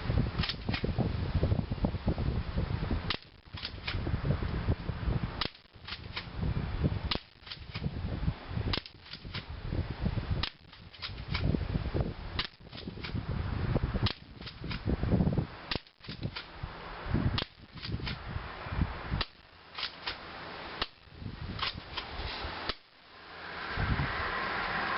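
Smith & Wesson M3000 airsoft shotgun firing repeatedly: a long string of sharp snaps and clacks, coming in clusters every second or two.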